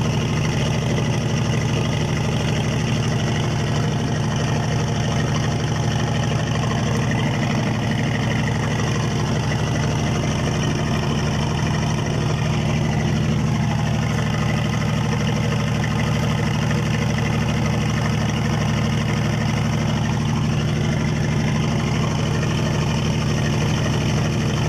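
A small boat's engine running steadily under way, an unbroken low drone, with the rush of water and wind over the hull.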